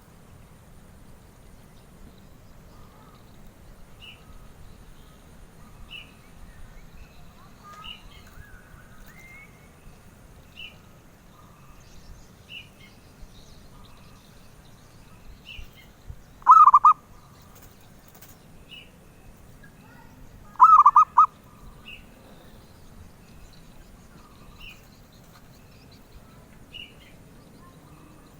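Zebra dove (perkutut) cooing: two short rolling coos of several quick notes each, about four seconds apart in the middle of the stretch. Faint high chirps repeat every couple of seconds throughout.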